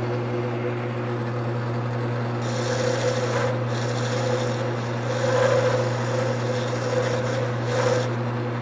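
Wood lathe motor running steadily while a hand-held turning tool cuts into the spinning wood, a rough scraping that swells in several passes as the tool is worked along the piece to shape a ball.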